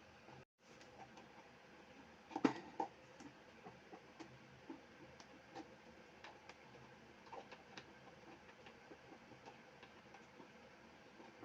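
Faint scattered clicks and taps of plastic fan parts being handled and fitted together, with one louder knock about two and a half seconds in.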